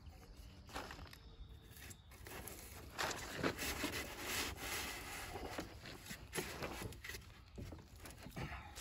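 Rubbing and scraping of foam as a metal Simpson Strong-Tie ICFVL ledger connector is pushed into a slot sawn in an expanded-polystyrene ICF block, busiest a few seconds in.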